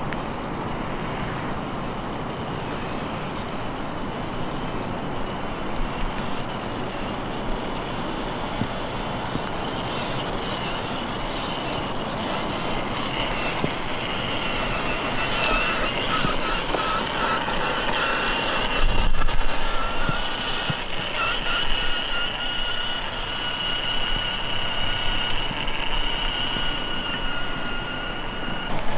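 Radio-controlled rock crawler with a brushless electric motor driving through mud and puddles: a steady rush of drivetrain, tyre and water noise, with a thin motor whine that wavers in pitch with the throttle through the second half. A brief louder rush comes about two-thirds of the way in.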